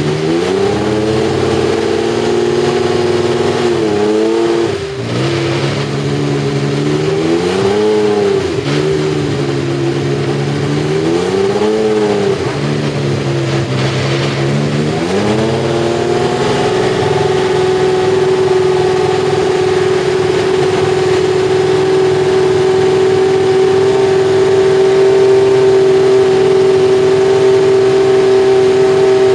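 McLaren Honda MP4/4's RA168E 1.5-litre turbocharged V6 being revved: engine speed rises and falls several times, then holds at one steady speed from a little past the middle, slowly getting louder.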